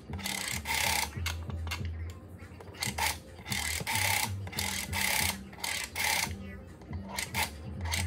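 Rotary telephone dial being turned and spinning back several times, each return a short whirring rasp, over background music.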